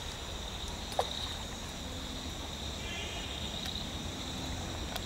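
Insects chirring steadily at a high pitch over a low outdoor rumble, with one short sharp sound about a second in.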